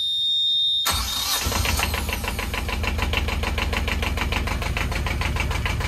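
A Beta Marine two-cylinder inboard diesel starting on the key: the panel's alarm buzzer cuts off just under a second in as the engine cranks, catches almost at once and settles into a steady, even idle. It starts first time, a sign of a healthy, nearly new engine.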